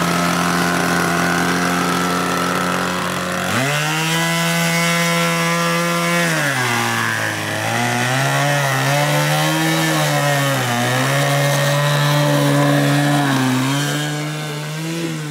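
Engine of a radio-controlled model Cub aeroplane, idling steadily, then opening up to a higher pitch about three and a half seconds in for the takeoff run. Its pitch dips and rises several times as the throttle is worked.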